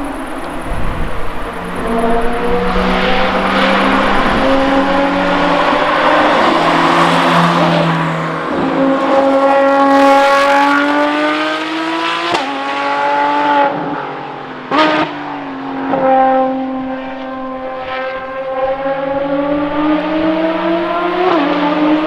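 Ferrari FXX K race cars' V12 engines accelerating hard, the engine note climbing steadily in pitch and dropping sharply at each upshift, several times. A sharp crack comes at one of the shifts, about two-thirds of the way through.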